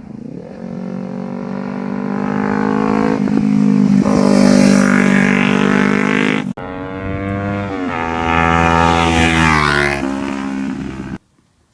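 A Kawasaki Ninja 300's parallel-twin engine through an MGP Growler slip-on exhaust, running hard and growing louder as the bike rides past. The sound breaks off suddenly about six and a half seconds in, comes back loud for a second pass, and cuts off shortly before the end.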